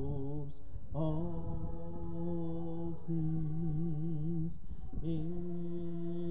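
A man singing a slow worship song, holding long notes of about two seconds each, some with a wavering vibrato, and moving to a new note about one, three and five seconds in.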